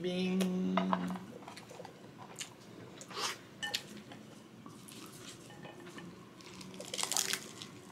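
Wooden chopsticks tapping and scraping while rice is scooped from a bowl, with a short hummed 'mmm' at the start. About seven seconds in comes a denser crackle as a spam musubi wrapped in crispy dried seaweed is bitten into.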